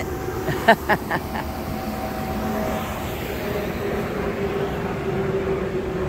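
Large outdoor cooling fan blowing a strong, steady rush of air with a low motor hum, the air blast buffeting the microphone. A couple of short sharp sounds about a second in.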